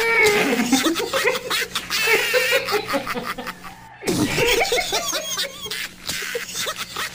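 A man laughing and snickering hard in bursts with his hand over his mouth. The same stretch of laughter plays again about four seconds in.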